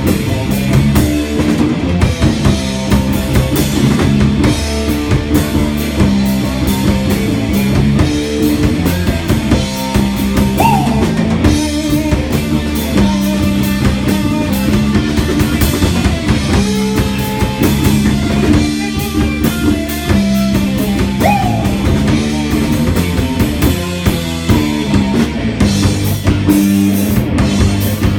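Rock band playing live: a drum kit beating steadily under electric guitar and bass guitar, with two short sliding guitar notes about 10 and 21 seconds in.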